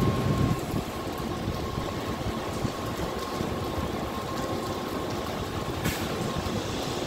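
Dutch NS Sprinter electric train running along the station track: a low rumble in the first half second, then a steady, even running noise with a thin high whine.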